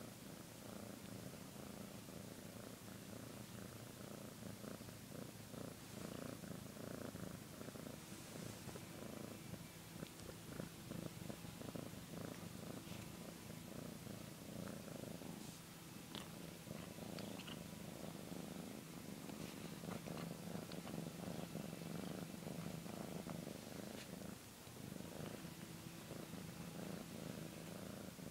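Domestic cat purring steadily, close up.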